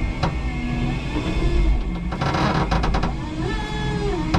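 5-ton electric forklift truck driving with a load: a low rumble under a motor whine that rises and falls in pitch, with a quick run of clicks around the middle.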